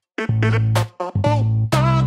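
Music with heavy bass notes played in short, stop-start phrases, and a lead line that bends in pitch near the end.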